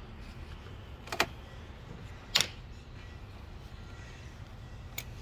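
Plastic trim clips on a car door being pulled off: two sharp snaps about a second apart, then a fainter click near the end, over a steady low hum.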